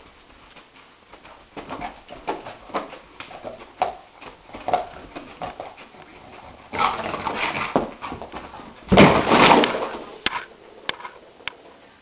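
A sleeping dog dreaming, giving a run of short muffled yips and whimpers while its legs paddle. A louder, noisier burst about nine seconds in is the loudest moment, followed by a few sharp clicks.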